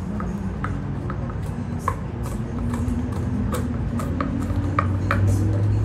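Golden retriever licking whipped cream from a small paper cup: an irregular run of quick, wet licks and tongue smacks, some knocking the cup.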